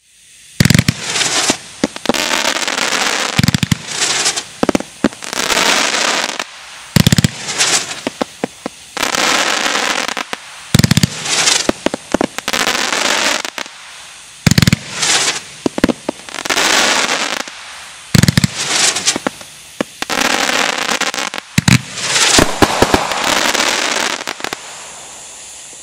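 Brothers Pyrotechnics Spin Devil, a 42-shot 500-gram fireworks cake, firing in volleys: a sharp launch thump every three to four seconds, each followed by dense crackling bursts lasting a second or two.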